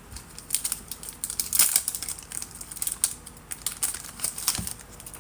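Trading cards and their packaging being handled at a card break: an uneven run of sharp crinkles, rustles and small clicks, busiest a little under two seconds in.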